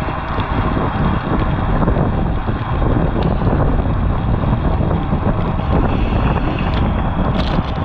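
Loud, steady wind rushing over the microphone of a bike-mounted action camera moving at racing speed, with a few faint clicks.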